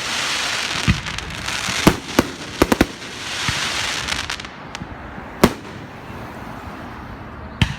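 Fireworks going off: stretches of dense crackling hiss broken by sharp bangs, several close together between about one and three seconds in, another about five and a half seconds in, and one near the end.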